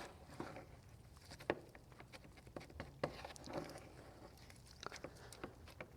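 Faint irregular scraping and tapping of a spreader working body filler and hardener together, with one sharper click about a second and a half in.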